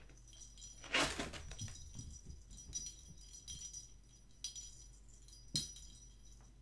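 A small plastic cat toy ball with a bell inside, jingling and rattling in bursts as it is handled, loudest about a second in, with a couple of sharp clicks near the end as it is tossed onto the carpet.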